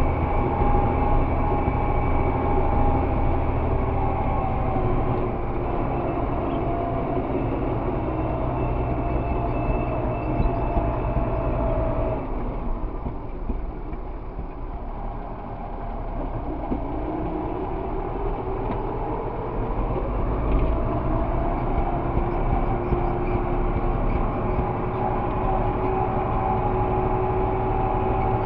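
Tractor engine running as it drives, heard from inside the cab with rattling. About twelve seconds in the revs drop and it quietens, then from about seventeen seconds the pitch rises steadily as it picks up speed again.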